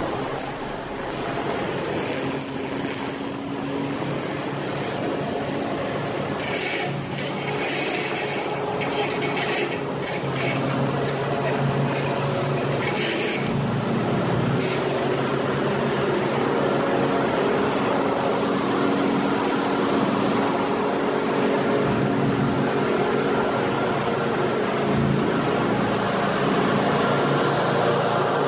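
Walk-behind commercial lawn mower's engine running steadily while cutting grass, growing gradually louder as it comes closer.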